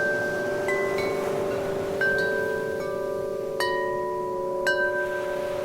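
Wind chime being struck by the wind at irregular moments, about half a dozen bright ringing notes that each hang on and overlap, the strongest two in the second half, over steadier lower ringing tones and a soft background hiss.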